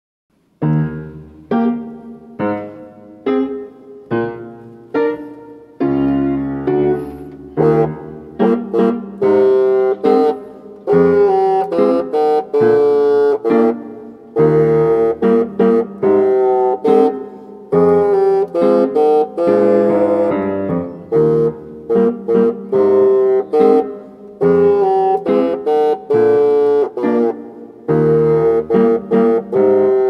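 Bassoon playing a lively piece with piano accompaniment. The first few seconds open on separate piano notes that fade after each strike, then bassoon and piano play together.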